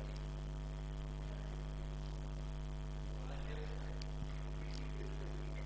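Steady low electrical mains hum with a stack of even overtones.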